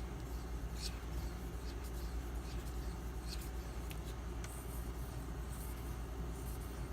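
M390 blade of a Benchmade Mini Griptilian stroked freehand across an 8000-grit waterstone carrying slurry: faint, irregular scraping swishes over a steady low hum.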